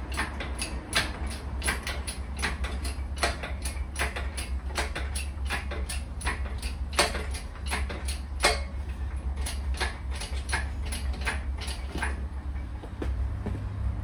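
Hand-pumped hydraulic engine crane being jacked up under a load, its pump and ram clicking with each stroke, about three clicks a second, thinning out after about nine seconds and stopping near the end.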